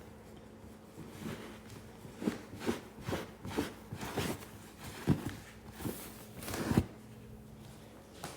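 Handling noises: about a dozen short, irregular knocks and rustles as things are moved about by hand.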